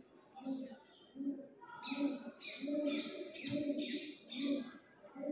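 Birds calling: a quick run of about six sharp falling calls in the middle, over low notes repeating about twice a second.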